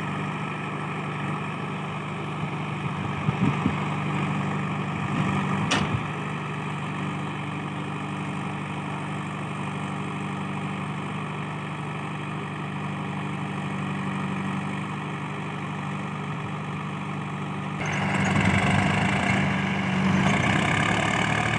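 Diesel engine of a JCB 3DX backhoe loader running steadily at idle, with a sharp click about six seconds in. Near the end it suddenly revs up louder.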